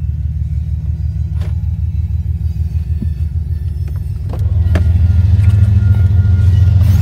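GE ES44AC diesel freight locomotive rumbling past a grade crossing, heard from inside a car. The deep, steady rumble grows louder about four seconds in.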